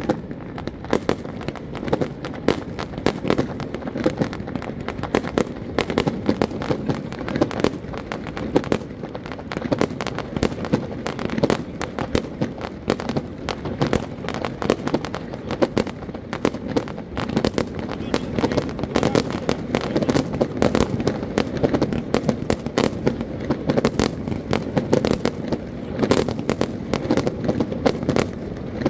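Fireworks display: a rapid, unbroken run of bangs and crackling bursts as shells go off one after another.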